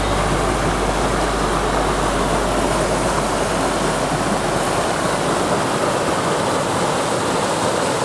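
Shallow mountain stream rushing steadily over a rocky bed close to the microphone, with a low rumble underneath that fades out about five seconds in.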